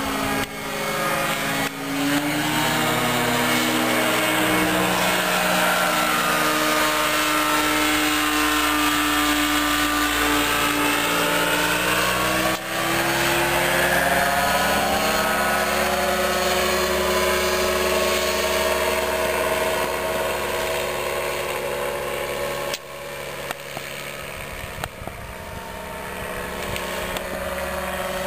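Engine and propeller of a powered hang glider (microlight trike) droning in flight, its pitch and tone slowly shifting as it passes by. The sound breaks off briefly a few times where the footage is cut.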